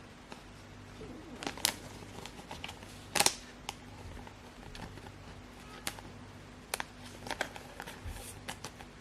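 Pokémon trading cards being handled: scattered soft clicks and rustles of card stock and packaging, the sharpest about three seconds in.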